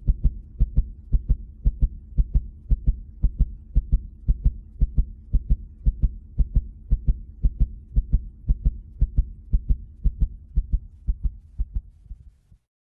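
Heartbeat-like pulse over a low steady hum, beating about three times a second in loose pairs, cutting off suddenly near the end.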